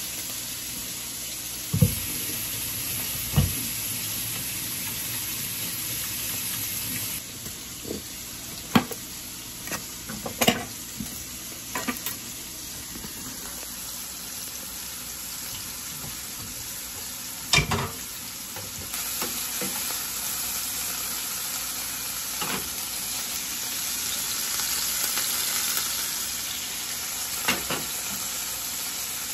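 Pieces of seasoned chuck steak searing in a nonstick skillet over a gas flame, a steady sizzle throughout. A handful of sharp clicks and knocks from metal tongs against the pan stand out above it.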